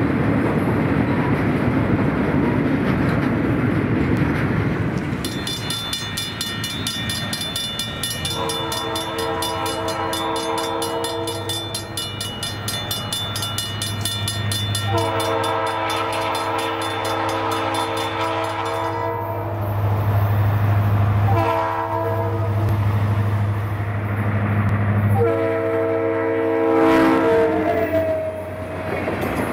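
EMD SD45T-2 diesel locomotive's horn sounding the grade-crossing signal, long, long, short, long, over the locomotive's engine and the rumble of the passing train.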